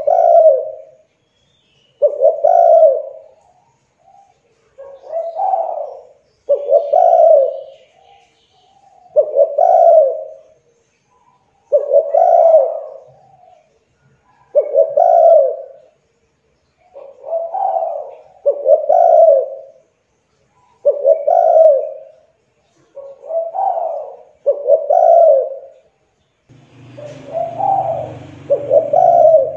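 Spotted dove (tekukur) cooing, its short coo phrases repeated loud and regularly about every two seconds. A low hum joins the last few calls near the end.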